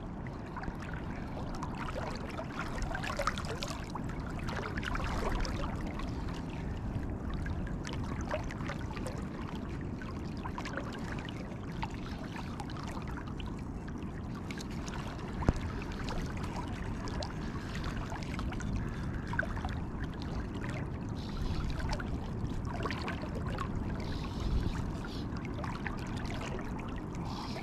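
Shallow estuary water trickling and lapping steadily around a wading person's legs, with one sharp click about halfway through.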